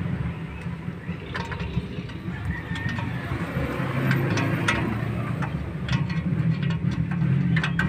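A vehicle engine running steadily with a low rumble, with a few light clicks and knocks scattered through.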